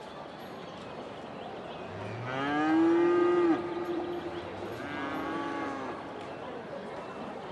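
A cow mooing twice: one long, loud call about two seconds in, then a shorter, softer one about a second after it ends.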